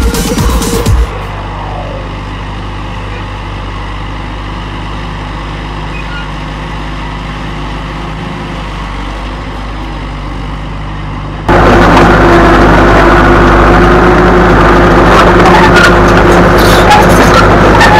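John Deere 450C crawler dozer's diesel engine running steadily under work. Well past halfway the sound jumps suddenly much louder and harsher, with the clatter of the steel tracks heard from right beside them.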